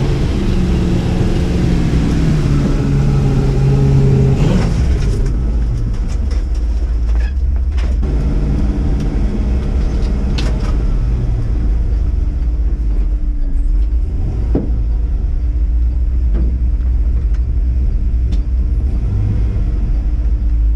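Lifted Chevy square-body truck's swapped 6.0 LS V8 pulling in four-wheel drive: the engine revs climb for about four seconds, drop, then climb again, over a deep steady rumble. A few sharp knocks come through along the way.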